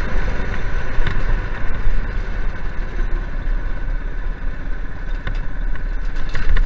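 Go-kart engine, a former dirt-track kart racing engine, running steadily as the kart rolls along, with a few sharp knocks about a second in and near the end.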